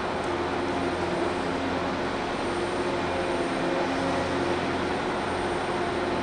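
Heavy machinery running steadily: a constant low hum under an even noise, with a few steady tones that fade in and out.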